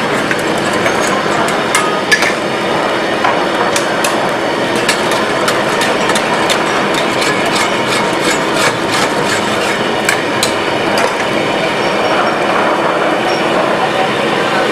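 Metal ladle and tongs clinking and scraping irregularly against a steel wok as chicken pieces are stirred in bubbling masala gravy, over a loud steady noise of cooking and surroundings.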